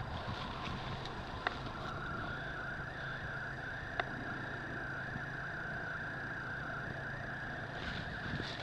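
Steady outdoor background noise among trees: an even hiss with a constant mid-pitched drone and a low hum, broken by two sharp clicks about one and a half and four seconds in.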